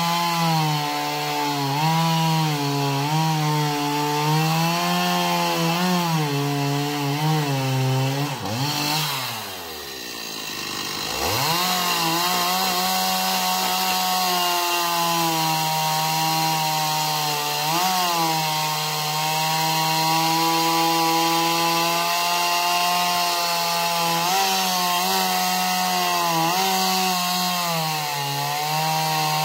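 Chainsaw cutting through the trunk of a felled Washingtonia filifera palm, running at high revs with the pitch wavering under the load of the cut. About nine seconds in, the engine drops to a low speed, then revs back up near eleven seconds and cuts on steadily.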